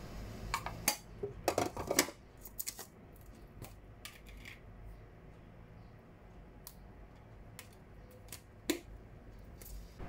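A plastic measuring spoon and seasoning containers click and tap against a ceramic bowl as powdered seasoning is spooned over raw pork ribs. There is a quick cluster of clicks in the first few seconds, then single light taps every second or so.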